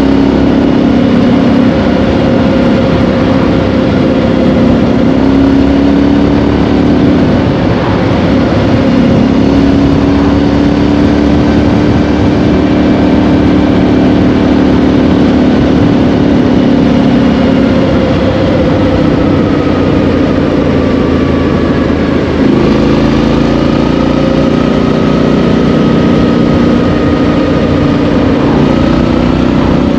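Triumph Street Scrambler's 900 cc parallel-twin engine running loud through a Vance & Hines exhaust at road speed, heard from the rider's seat. The engine note drifts slowly up and down, with brief breaks about eight seconds in and again about twenty-two seconds in.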